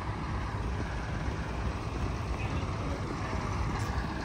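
Heavy diesel truck engines running steadily, a continuous low rumble, from the crane trucks recovering an overturned container lorry and the traffic held up around it.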